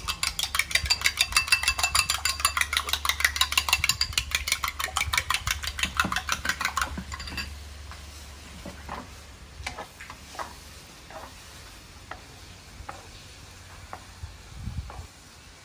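Eggs being beaten with a metal spoon in a ceramic bowl: fast, even clinking that stops about seven seconds in. After that only a few faint scattered taps and scrapes, with a wooden spatula stirring in a wok near the end.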